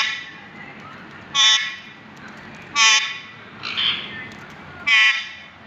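Parrot imitating a vehicle horn: four short honks about a second and a half apart, with a rougher squawk between the third and fourth.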